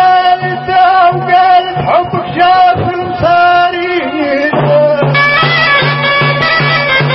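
Tunisian folk music: a male singer's mawwal, his voice bending through a melodic phrase over a wind instrument's held reedy melody and a low drum beat. About four and a half seconds in, the band swells into a steady, regular drum beat.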